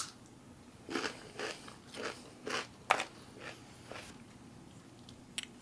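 Close-up chewing of a mouthful of crunchy rye crispbread, with irregular crunches about twice a second that die away near the end.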